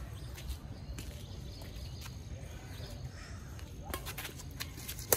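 Badminton rackets striking a shuttlecock in a rally: a run of sharp hits and clicks starts about four seconds in, with the loudest hit just before the end. A low steady rumble lies underneath, and a bird calls faintly.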